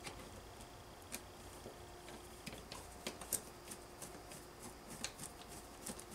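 Screwdriver turning a screw out of a Mac LC II power supply's casing: faint, irregular small clicks and ticks, a few sharper ones about a second and three seconds in.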